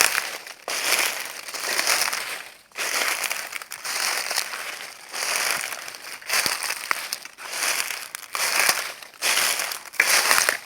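Footsteps crunching through dry leaves, a crackly crunch at roughly one step a second.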